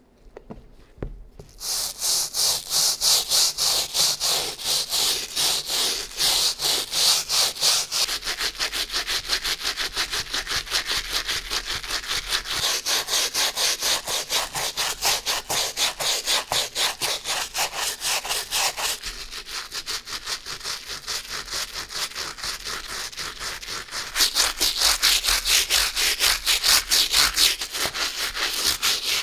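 A bristle brush scrubbing a sneaker in rapid back-and-forth strokes, several a second, starting about a second and a half in. The strokes ease off for a few seconds past the middle, then pick up again.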